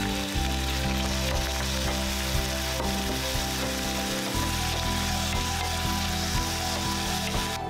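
Raw shrimp and chopped vegetables sizzling in oil in a frying pan, stirred with a wooden spatula; a steady hiss that cuts off near the end.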